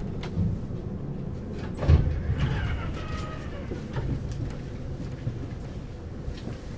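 Frankfurt S-Wagen light-rail tram standing at a stop with a steady low rumble. A sharp thump comes about two seconds in, and just after it a faint whine falls in pitch.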